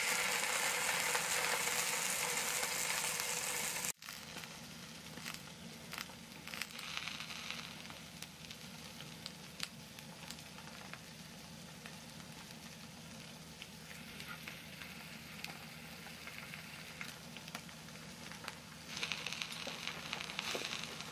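Grilling cheese and vegetables sizzling in a frying pan, cutting off abruptly about four seconds in. After that, quieter scattered clicks and taps of chopsticks on a plate, with a brief patch of hiss near the end.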